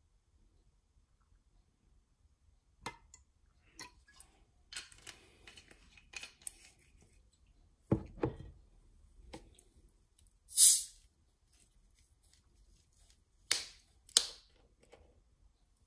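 Scattered handling noises around plastic cups on a table: separate clicks and knocks, a low thump about eight seconds in, a short loud rasp a little after ten seconds, and two sharp clicks near the end.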